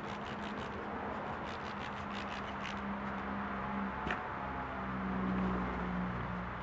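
A trigger spray bottle of 303 UV protectant squirted in quick repeated pumps, about five a second, stopping a little under three seconds in. Near the end a cloth rubs over the kayak's plastic deck. A low steady hum runs underneath.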